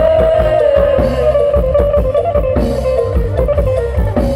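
Mor lam band music: plucked guitar-like lead and bass guitar over a drum-kit beat, with a long held high note that fades about a second in.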